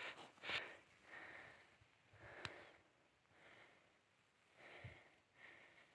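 Faint breathing of a hiker on a steep snow path: several soft, airy breaths, with a single sharp click about two and a half seconds in.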